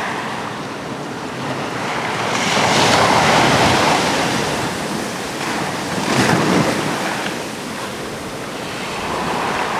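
Sea waves breaking and washing in a continuous surf noise, with one big wave surging about a third of the way in and a smaller one about two-thirds in.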